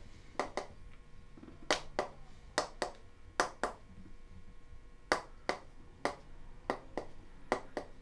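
Chiropractic adjusting hammer: a mallet striking a metal adjusting instrument held against the upper back, giving a series of sharp taps, mostly in quick pairs, about every half second to second.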